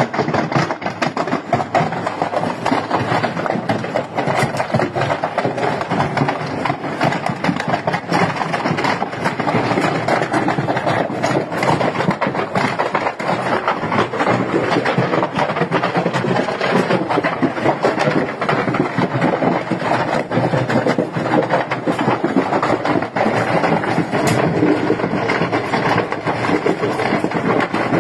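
Large open fire burning at a shopfront, with a dense, continuous crackling over a steady rush of noise.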